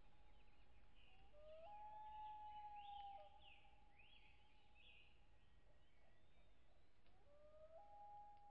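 Faint common loon wails: a long call that rises and then holds steady on one pitch, about a second and a half in and again near the end. Other birds chirp in between.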